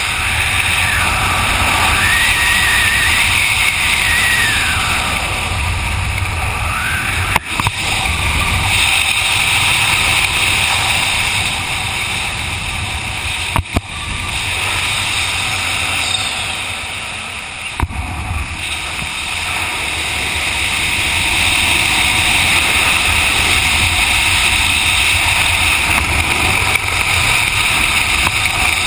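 Wind rushing over a head-mounted camera's microphone during a parachute descent under an open canopy: a loud, steady rush with a deep rumble. A faint wavering whistle rides on it in the first several seconds, and three brief knocks come through later.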